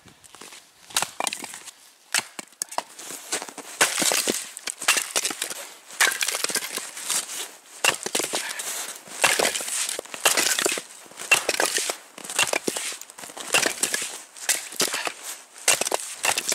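Axe splitting firewood on a chopping block: a steady run of sharp chops, about one or two a second, with the wood cracking apart.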